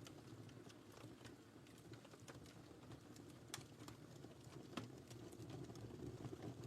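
Wood fire crackling in a fireplace: a quiet, steady low rush of flames under scattered small crackles, with two sharper pops a little past the middle.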